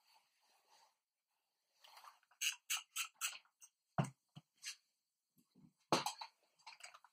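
Handling noises as an electric iron is lifted off the fabric and set aside: a quick run of clicks and rustles, then two knocks about two seconds apart.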